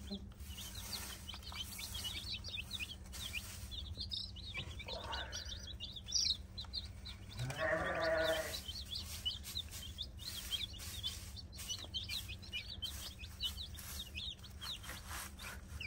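A brood of baby chicks peeping continuously: a dense stream of short, high chirps. A longer, lower call comes about eight seconds in, and a fainter one about five seconds in.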